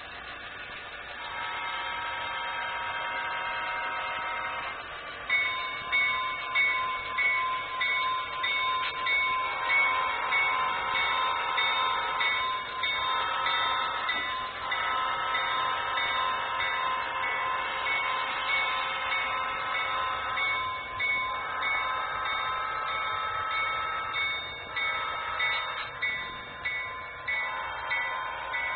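Model locomotive's sound-system bell ringing, repeated strikes about every 0.7 s that each fade, after a few seconds of a steady held tone.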